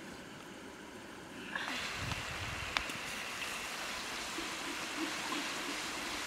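Egg frying in hot oil in a steel wok, a steady sizzle that starts about a second and a half in, stirred with a wooden spatula that gives one sharp tap against the pan soon after.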